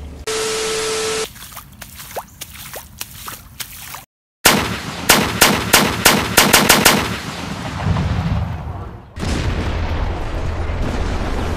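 Edited anime action sound effects: a short hissing burst, scattered clicks, then a quick run of about eight sharp shot-like cracks over two seconds, the loudest part. From about nine seconds in, a steady loud explosion rumble takes over.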